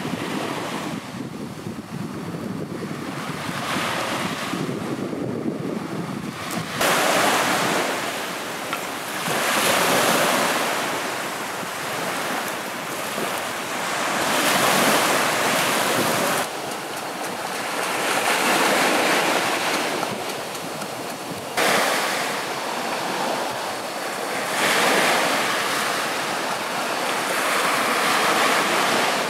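Waves washing onto a sandy shore, the surf swelling and falling back every few seconds, with wind buffeting the microphone.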